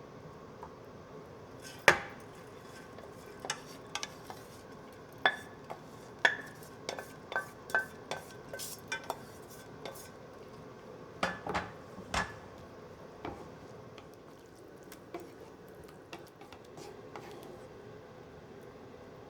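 Kitchen utensils knocking and clinking against pots and dishes: a run of separate sharp taps, some with a short ring, the loudest about two seconds in, thinning out over the last few seconds.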